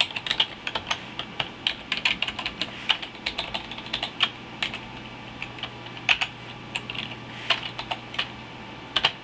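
Typing on a computer keyboard: a run of quick, irregular keystrokes that thins out after about four seconds, with a couple of last taps near the end.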